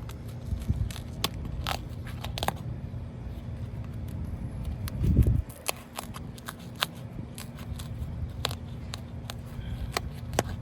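Hand work on a wind-creased asphalt roof shingle being removed: scattered crackles and sharp clicks as the shingle is pried loose and handled, with a short low rumble about five seconds in.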